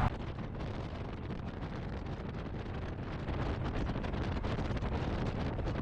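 Wind buffeting the microphone over the low rumble of a motorcycle riding on the road.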